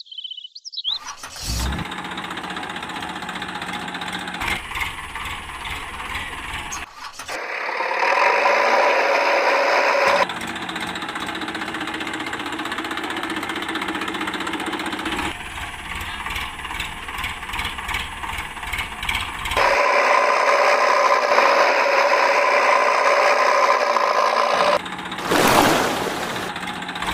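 Engine running sound, steady within each stretch, changing abruptly several times at cuts. Two louder stretches carry a steady higher whine.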